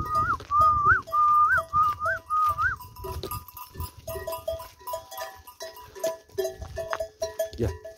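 Flock of sheep bleating, with short pitched clinks repeating throughout, typical of the bells on a grazing flock. A high wavering tone rises and falls several times over the first three seconds.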